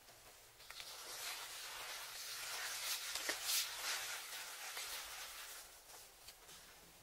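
A dry spice mix being stirred by hand in a glass bowl: a gritty scraping rustle that starts under a second in, is loudest in the middle, and fades out before the end.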